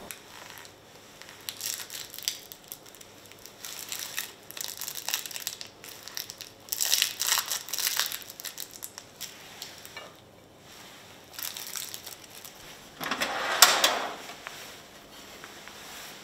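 Kitchen food-prep handling noises in short bursts: clear plastic film crinkling and salad greens rustling, with a louder crinkling rustle about thirteen seconds in.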